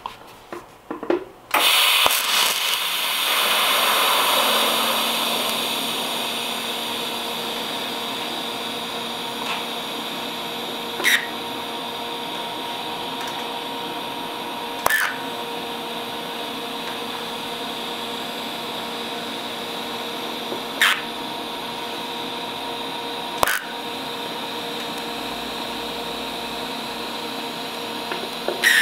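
TIG welding arc on a stainless steel brewing tank, filling a small hole with filler rod: a steady hiss with a buzzing hum that starts about two seconds in, swells briefly and then holds, broken by a few short sharp clicks.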